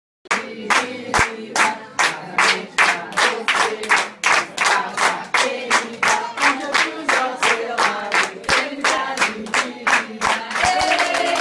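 A group of people clapping in a steady rhythm, about five claps every two seconds, while singing a birthday song together around a lit candle. Near the end one voice holds a long, slowly falling note.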